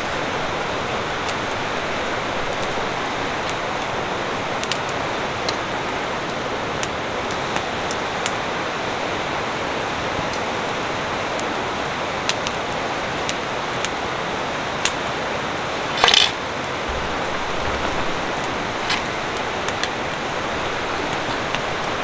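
Steady outdoor rushing noise with scattered light ticks, and one short knock or scrape about sixteen seconds in.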